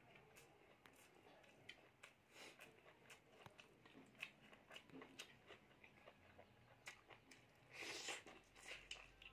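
Faint, close-up eating sounds: scattered soft clicks and smacks as rice and pork curry are mixed by hand on a steel plate and chewed. About eight seconds in comes a louder bite into a piece of pork.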